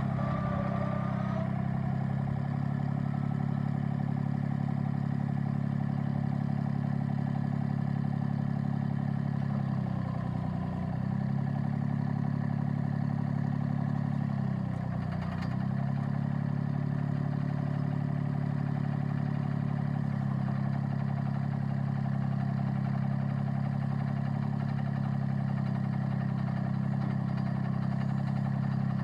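Mahindra eMax 25 compact tractor's diesel engine running steadily, its speed dipping briefly twice, about ten and fifteen seconds in. A short high whine sounds in the first second or so.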